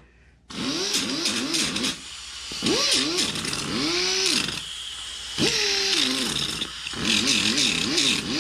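Small pneumatic angle grinder with a sanding disc running against a turbo actuator housing, scuffing off paint. Its pitch rises and falls repeatedly over several runs, with a hiss of air throughout and short let-offs about two and five seconds in.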